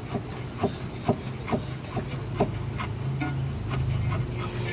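Worn, disintegrated rear bushing of a VW New Beetle front lower control arm being worked back and forth, giving light knocks about twice a second as the arm moves in the loose bushing. A steady low hum runs underneath.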